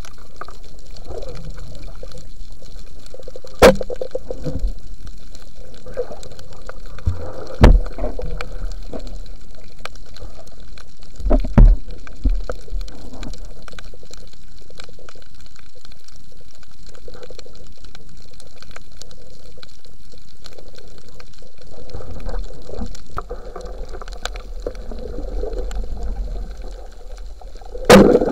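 Muffled underwater sound heard through a camera housing during a night spearfishing dive, with a few sharp knocks: four, including a loud one near the end.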